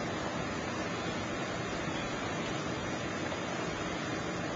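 Steady, even hiss of background noise with no distinct event in it.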